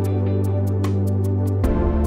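Background music: held bass and chords under light ticking percussion, the bass note changing about one and a half seconds in.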